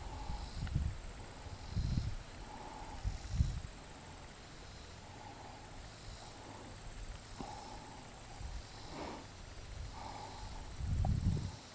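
Horse's hooves thudding dully on soft ground, a few uneven steps, then a quieter stretch before more steps near the end, with a faint steady high trill in the background.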